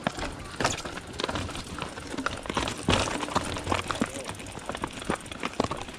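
Irregular clatter of footsteps and a mountain bike moving over the loose rocks of a creek bed: a quick, uneven string of sharp knocks and clicks.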